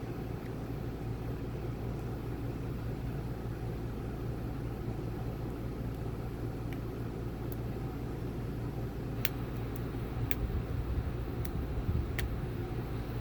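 Lock picking on an EVVA EPS XP slider-sidebar lock: a few faint, sharp clicks of the pick and tension tools working the pins and sliders in the second half, over a steady low background hum.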